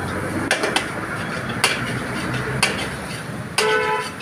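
Metal ladle clanking against a steel wok as chow mein is tossed and stir-fried over a gas burner, with a steady hiss underneath. Several sharp clanks come about a second apart.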